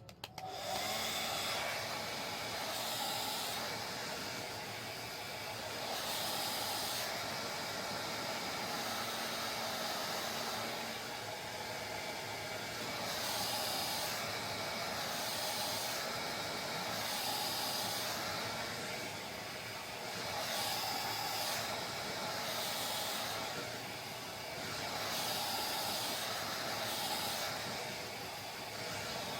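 Hair dryer running: a steady rush of blown air that comes on under a second in, then swells and dips every few seconds as the dryer is moved over the hair.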